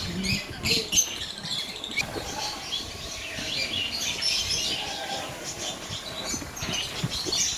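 Many small birds chirping and calling at once, a dense overlapping chatter of short high chirps.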